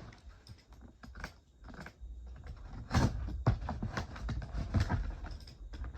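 Cardboard box being handled, with a series of short knocks and scrapes that grow louder from about three seconds in.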